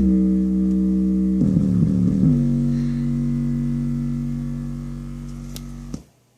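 Bass-heavy music played through a 100 W subwoofer driven by a TDA2005 amplifier: held low notes with a short run of changing notes about two seconds in, then one long note that slowly fades and cuts off suddenly near the end, leaving a faint hum.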